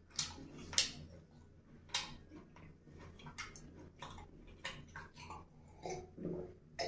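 Close-up mouth sounds of a person chewing a mouthful of fried chicken: a dozen or so short, wet clicks and smacks at irregular intervals. Near the end comes a sip and swallow of water from a glass.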